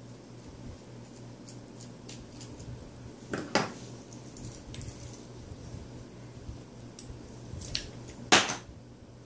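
Light metallic clinks and clicks of a screwdriver and metal parts as the launcher's fore-end screw is taken out and the launcher is handled: a pair of sharp clinks about three and a half seconds in, a few faint ticks, and the loudest clink near the end.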